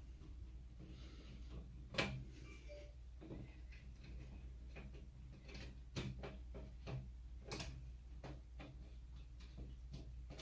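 Irregular clicks and knocks of M6 screws and metal rack parts being handled and fastened while the crossbars of an open-frame server rack are screwed in, with the sharpest knocks about two seconds and six seconds in.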